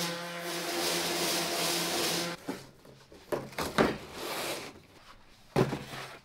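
Handheld electric sander running steadily on a sign being prepped for paint, switched off about two and a half seconds in, followed by a few knocks and handling clatter.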